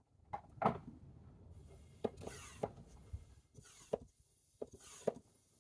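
A series of sharp clicks and knocks, roughly one a second, with several short bursts of rustling, as of things being handled.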